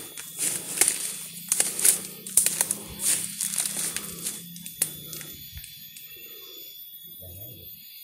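Twigs, dry leaves and brush crunching and snapping underfoot, a quick run of sharp cracks and rustles that dies down after about five seconds.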